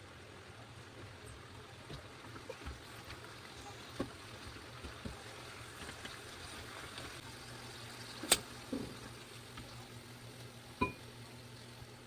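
Food cooking in a pan: a faint steady hiss with a few sharp clinks, the loudest about eight seconds in.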